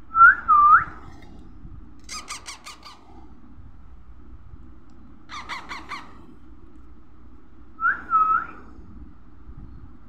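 Parakeet chick calling: two short whistled calls that glide up and down, then two bursts of rapid harsh squawks, then two more whistled calls near the end.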